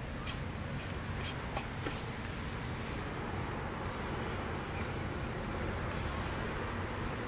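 An insect calling with one steady high-pitched whine that stops about six seconds in, over a low background rumble, with a few light clicks in the first two seconds.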